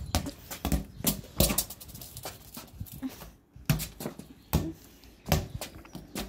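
Football being kicked and juggled by foot on a stone patio: a series of thuds, about six, at roughly one-second intervals.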